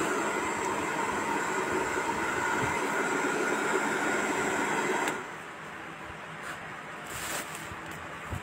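Hand-held hair dryer running: a steady rush of blown air with a motor whine, which stops about five seconds in.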